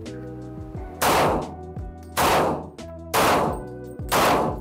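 Four shots from a Glock 27 subcompact pistol in .40 S&W, fired one-handed about a second apart, each a sharp bang with a short echo.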